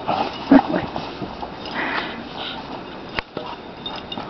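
Dogs sniffing and snuffling at the snow as they play, in short noisy bursts, with a brief louder sound about half a second in and a sharp click a little after three seconds.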